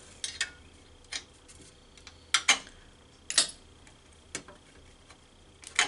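Flathead screwdriver working at the metal X-clamp on an Xbox 360 motherboard to pry it off: a handful of short, sharp clicks and taps, unevenly spaced.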